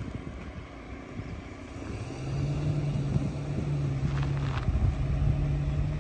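A vehicle's engine running: a steady low drone that comes in about two seconds in and grows louder, over a low rumble.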